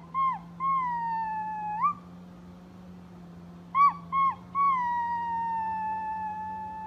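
Puppy howling: two short yips then a long drawn-out howl, twice over, the second howl slowly sinking in pitch. A steady low hum runs underneath.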